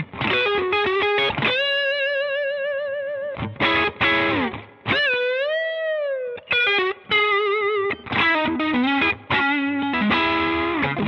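Stratocaster-style electric guitar played through a Rola Reverb 50 combo amp with some overdrive: a single-note lead of fast runs and long held notes with wide vibrato. About halfway through a string is bent up, held and let back down, and near the end a note slides down the neck.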